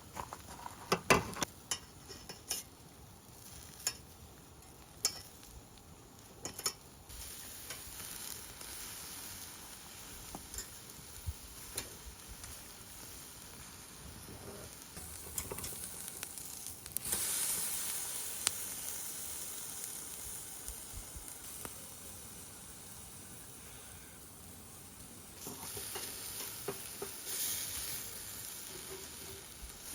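Meat dipped in tsuyu sauce sizzling on a small charcoal brazier grill, a steady hiss that grows louder a little past halfway and again near the end. Scattered sharp clicks and taps come through it, the loudest in the first couple of seconds.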